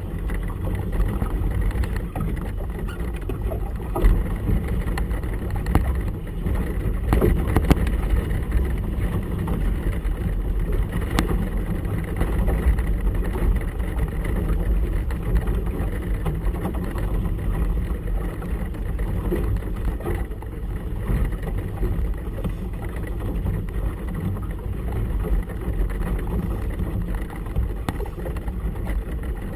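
Steady low rumble of gusty wind and choppy water around a boat on open harbour water, with a few brief knocks.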